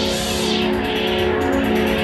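Loud live electronic music of held, droning tones. About half a second in the treble is filtered away, with a fast flutter in the highs, and it opens up again near the end.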